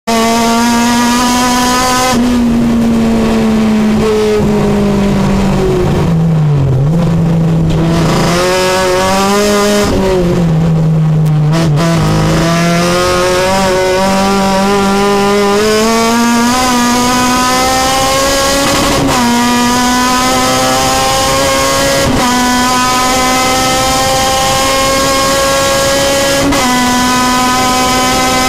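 Supercharged Honda K24 four-cylinder race engine, a Kraftwerks-blown 2007 Euro K24, heard from inside the cabin at full throttle on a time-attack lap. The revs drop and climb again twice in the first half. In the second half they rise and hold high, broken sharply three times at gear changes.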